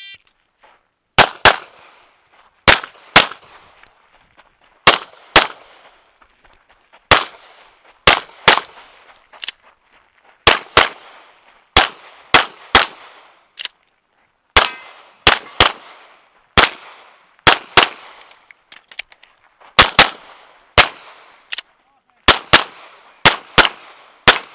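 A shot timer gives one short start beep. Then an STI Matchmaster Open-division pistol fires close to thirty shots, mostly in quick pairs with pauses of a second or two between groups.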